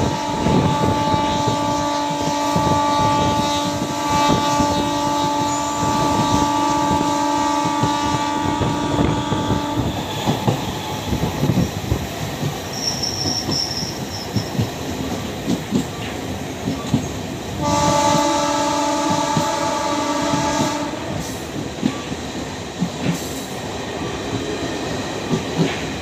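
A green diesel-electric multiple unit (DEMU) train's horn sounds a long, steady blast of about ten seconds, then a second blast of about three seconds, over the rumble and clatter of its wheels on the rails.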